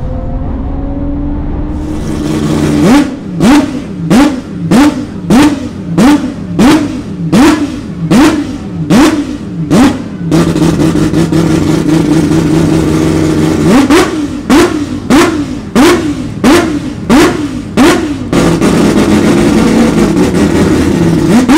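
Five-rotor rotary engine of a Mazda 787D being revved: a rapid run of sharp throttle blips, about one and a half a second, broken by stretches of held high revs in the middle and near the end. It is preceded, for the first two seconds, by a Nissan R32 Skyline's engine heard from inside its cabin on track.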